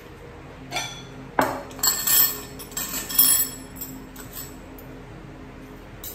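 Kitchen tableware clinking: a quick run of sharp chinks that ring briefly, loudest about a second and a half and three seconds in, as dishes and utensils are handled.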